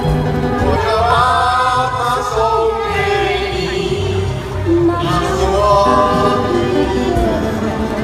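A song: a singing voice holding long, sliding notes over instrumental backing with a steady bass line.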